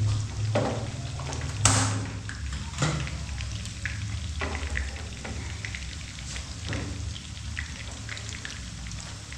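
Fish frying in hot oil in a pan: a steady sizzle with scattered pops and crackles, the sharpest about a second and a half in, over a steady low hum.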